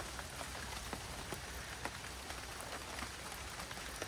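Light rain pattering: a faint steady hiss with many small, irregular drop ticks.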